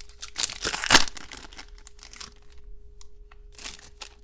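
Trading-card pack wrapper crinkling and cards being handled, with the loudest rustles around the first second, then lighter rustles and a few small clicks.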